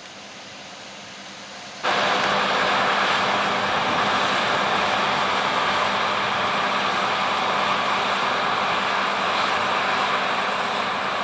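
Combine harvester running steadily at work, a dense mechanical noise with a faint steady hum through it. It jumps much louder about two seconds in.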